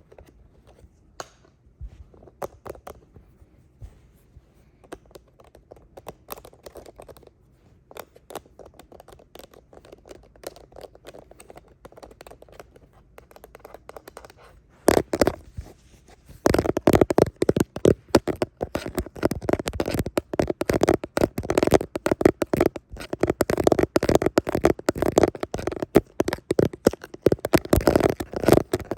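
Fingernails tapping and scratching on a handheld device for ASMR. For the first half there are sparse light taps and clicks. From about halfway it turns to dense, rapid, louder scratching.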